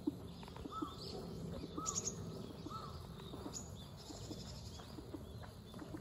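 Outdoor park ambience with small wild birds calling: three short arched notes about a second apart early on, and thin high chirps scattered throughout, over a low steady background rumble.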